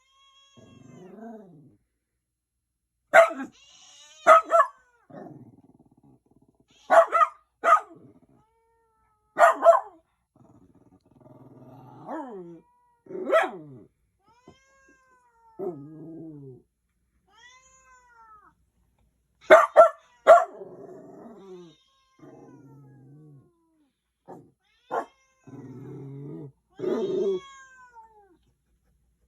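A dog barks in short, sharp bursts, with a gap of several seconds between them. Between the barks a cat growls low and yowls in long, bending cries: the cat's defensive answer to the dog.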